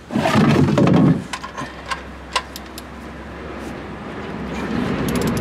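A loud low rumble for about the first second, then a few sharp metallic clicks from a socket wrench working on the car's oil sump plug to crack it loose. A low rumbling noise slowly builds toward the end.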